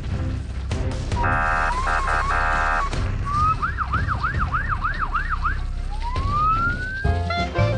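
Emergency-vehicle siren sound effects in a cartoon. First a two-tone siren switching between two pitches, then a fast yelp sweeping up and down about three times a second, then a slow rising wail, all over a steady low rumble.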